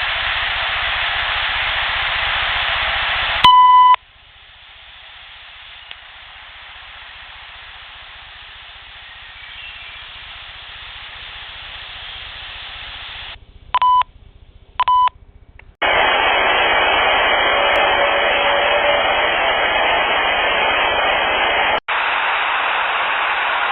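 Steady hiss of amplified field recordings, joined clip to clip, with a short high beep tone about three and a half seconds in and two brief beeps near the middle. The hiss drops low after the first beep and comes back loud a little after the pair of beeps.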